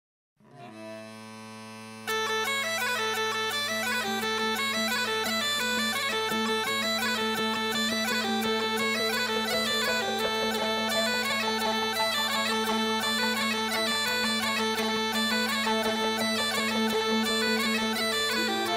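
Bagpipe music. The steady drones sound first, then about two seconds in the chanter comes in playing a quick tune over them.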